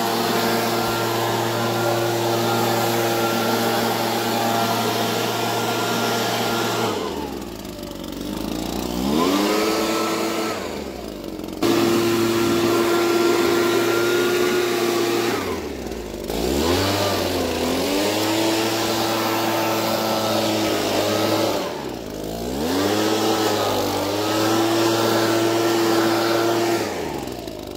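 Handheld leaf blower running at full throttle, let off three times so that its pitch drops and then climbs back up.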